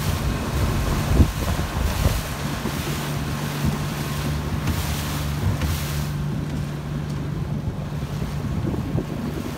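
Wind buffeting the microphone over the rush of water and waves on open water. A steady low hum runs through the middle, with a brief thump about a second in.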